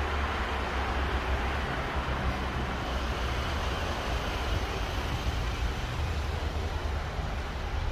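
Steady low rumble with an even hiss of outdoor background noise, constant throughout, with no single sound standing out.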